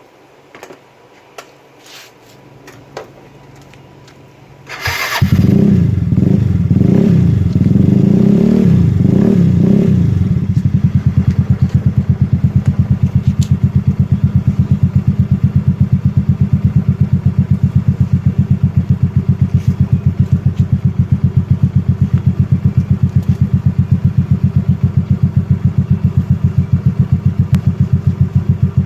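Yamaha Mio Soulty scooter's stock single-cylinder engine breathing through an aftermarket Kalkal Evo organ-type exhaust pipe. After a few faint clicks it starts about five seconds in and is revved in short blips for several seconds. It then settles into a steady idle with a fast, even exhaust pulse.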